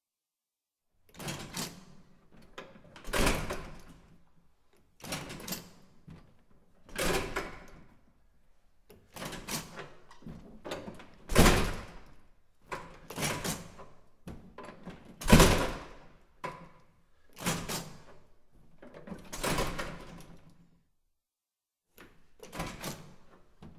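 Push-bar door being opened and closed over and over: a clack as the bar is pushed and the door swings open, then a louder thud as it shuts about two seconds later. The open-and-shut cycle runs about six times.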